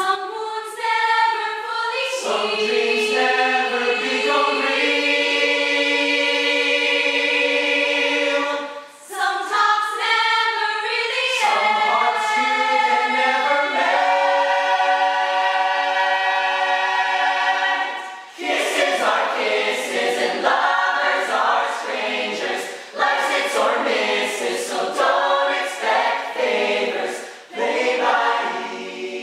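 A mixed group of men's and women's voices singing a cappella in harmony, holding long chords in the first half and moving through quicker, choppier phrases after about 18 seconds, with brief breaks between phrases.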